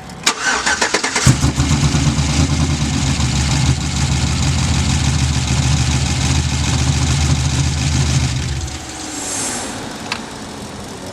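Truck engine cranked by the starter for about a second, catching and running for about seven seconds, then shut off. It sounds weak, which the owners put down to a coil pack left disconnected, so a cylinder is not firing.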